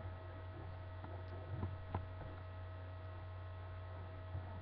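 Steady low electrical hum, with two faint clicks between one and a half and two seconds in.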